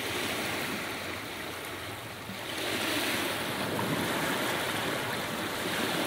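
Sea waves washing onto a beach, a steady surf that swells a little about two and a half seconds in.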